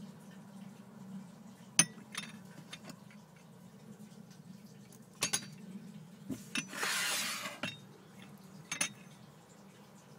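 Limoges porcelain demitasse cup knocking against its saucer in a few light clinks, the sharpest about two seconds in, with a short hiss of about a second in the second half over a low steady hum.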